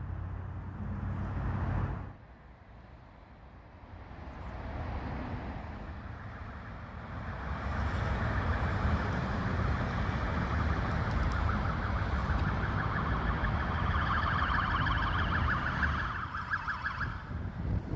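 Ambulance siren sounding in a fast warble. It grows louder from about seven seconds in and stops about a second before the end, over a low rumble of road traffic.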